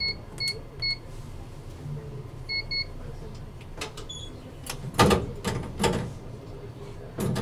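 Inside the cab of a stopped Toyohashi Railway T1000 Hottram low-floor tram: short electronic beeps, several in quick succession at the start and two more a little later, over a low steady hum, followed by a cluster of sharp clunks and knocks about four to six seconds in.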